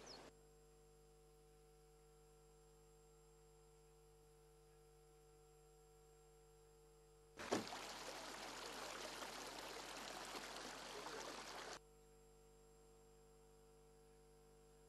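Near silence with a faint steady hum, broken about seven seconds in by some four seconds of rushing floodwater that starts with a click and cuts off sharply.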